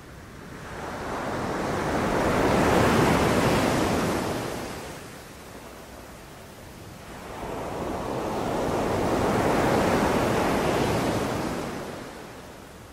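Sea waves breaking on a beach, two in a row: each swells up over a couple of seconds into a rush of surf, then washes out and fades.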